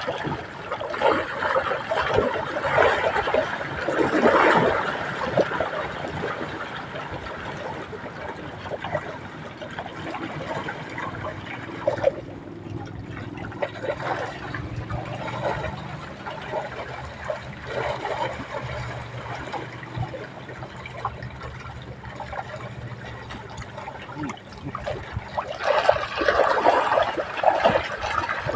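Water splashing and trickling, in louder bursts in the first few seconds and again near the end, with a faint low hum in between.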